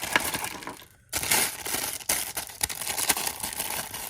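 Small plastic accessory bags crinkling and rustling as they are handled and opened, with a brief pause about a second in.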